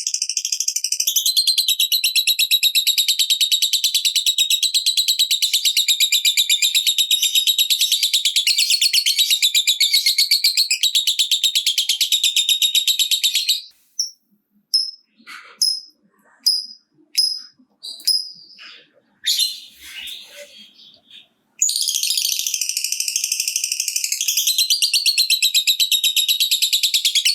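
Lovebird 'ngekek': a long, rapid, high-pitched chattering trill, the prized long song that hobbyists play to provoke other lovebirds into singing. About thirteen seconds in it breaks into scattered short chirps, then resumes the continuous trill some eight seconds later.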